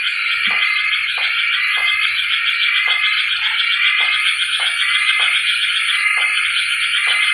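A loud, dense, steady chorus of pulsing animal calls with a thin high buzz above it, and shorter lower calls standing out about once or twice a second.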